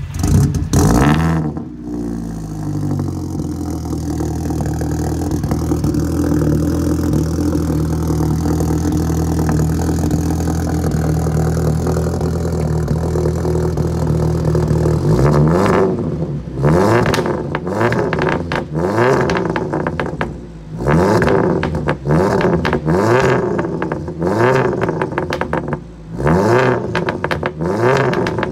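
Remapped car engine cold-starting: it catches with a loud burst and settles into a steady fast idle. From about fifteen seconds in it is revved about once a second, each rev rising and falling, with exhaust crackles and pops between the revs.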